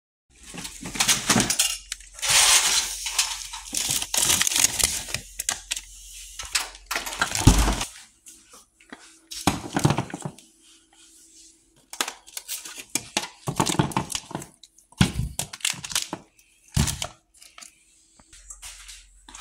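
Vacuum-sealed plastic packages of beef being handled: irregular bouts of plastic crinkling and knocking, with clinks as they are set on a ceramic plate. A faint steady hum runs through the middle part.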